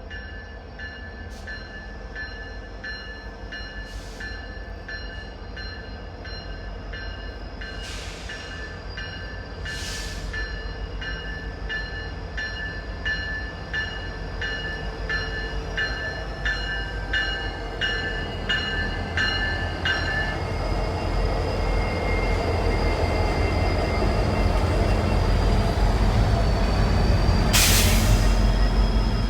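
A bell ringing in a steady repeating pattern, about one and a half strokes a second, which stops about twenty seconds in. Under it the rumble of an approaching train grows steadily louder, with a short hiss near the end.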